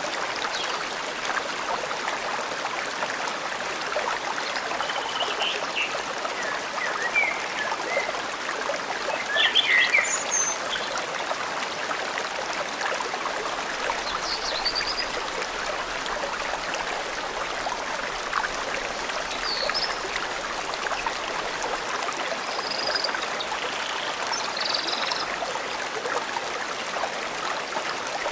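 Forest stream flowing steadily, with scattered short bird chirps over the water, the loudest about ten seconds in.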